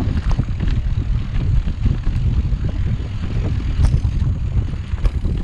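Wind buffeting the microphone of a camera riding on a moving mountain bike: a loud, steady low rumble with scattered clicks and rattles from the bike on the trail.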